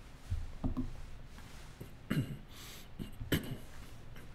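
Quiet throat and breath sounds from a man at a close microphone, with a brief throat-clear about two seconds in and a single sharp click a little over three seconds in.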